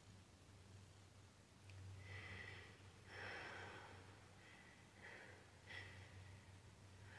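A woman sniffling and breathing shakily while holding back tears: several faint short sniffs and breaths over a low steady electrical hum.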